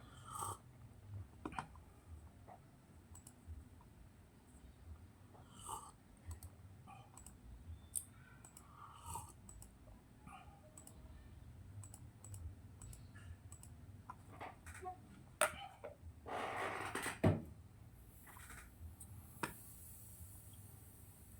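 Faint, irregular clicks and taps of a computer keyboard and mouse being used, with a brief rustling noise about sixteen seconds in.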